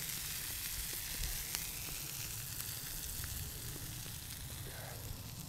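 Sausages frying in butter in a pan over a campfire: a steady sizzle with a few small crackles, slowly getting quieter.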